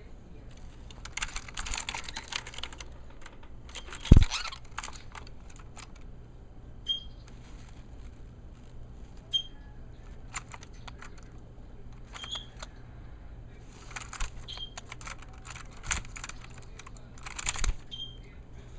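A small pet animal giving short, high chirping squeaks every few seconds amid bursts of clicking and scratching. There is one loud thump about four seconds in.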